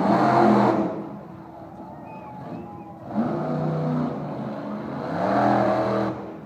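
Monster truck engines revving hard in bursts: a loud surge right at the start, then more revving that builds from about three seconds in and peaks again just before the end.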